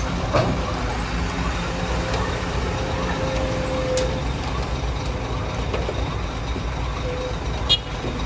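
Heavy construction machinery, diesel excavator and truck engines, running steadily with a low rumble. There are two sharp clanks, one about half a second in and one near the end.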